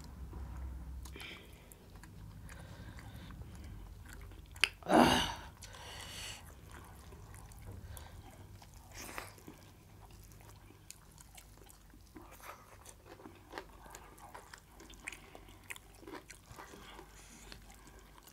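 People chewing and eating rice and mutton curry with their hands, with many small wet clicks and smacks throughout. One much louder burst comes about five seconds in.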